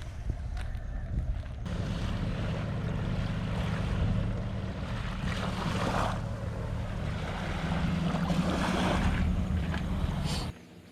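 A motor running steadily under rushing wind and water-like noise, cut off abruptly near the end.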